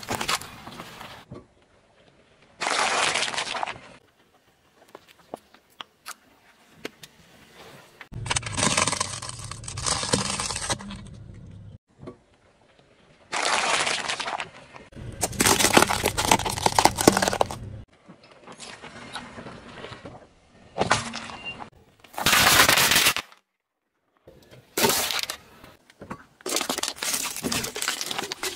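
Car tyre rolling over and crushing objects one after another: sharp cracks, crunches and snapping as they break, in a string of separate bursts of a second or two with short quiet gaps and abrupt cuts between them. Near the start it is a bundle of coloured pencils snapping under the tyre.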